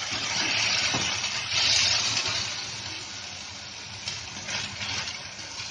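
Chicken masala sizzling as it is fried in a non-stick wok and stirred with a wooden spatula. The sizzle is loudest for the first two seconds, then dies down, with a few light scrapes near the end.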